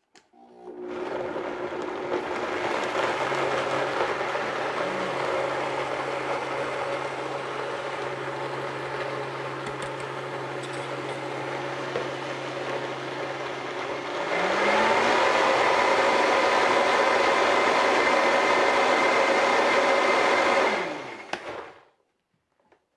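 Blender running, puréeing dates, non-dairy milk and vanilla until smooth. About fourteen seconds in it speeds up and gets louder, then winds down and stops near the end.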